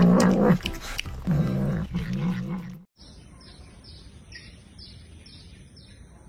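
A loud, low animal vocalization with a wavering pitch for nearly three seconds, then an abrupt cut to a faint background with a quick run of short, high chirps repeating.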